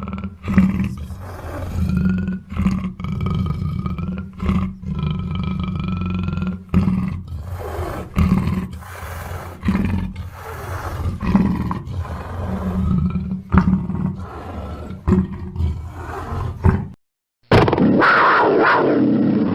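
Black panther (melanistic big cat) calling in a string of rough, deep calls with short breaks between them. About seventeen seconds in the sound cuts out briefly, and a different, thinner-sounding recording of the calls begins.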